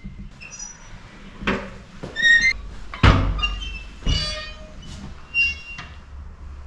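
Bathroom doors squeaking on their hinges and knocking: several short high squeals and three heavy thuds, the loudest about three seconds in.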